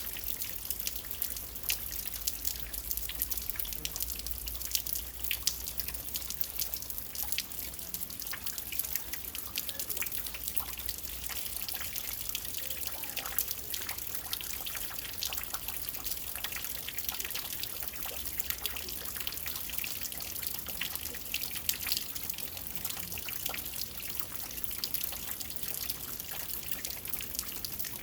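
Steady rain falling, with many individual drops ticking and dripping close by over a continuous hiss.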